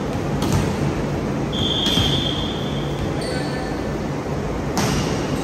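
A referee's whistle blows once, a steady shrill tone lasting about a second, a little over a second in. Near the end comes a sharp smack of a hand hitting a volleyball on a serve, over the steady low hum of a large gym hall.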